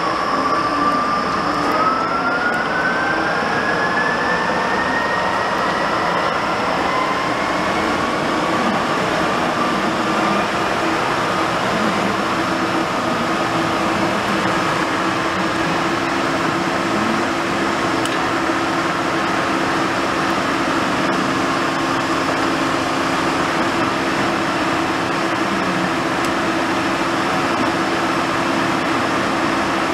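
Large WMW Niles engine lathe running under power, its spindle drive giving a steady mechanical hum. A gear whine rises in pitch over the first several seconds as the spindle comes up to speed, then holds steady.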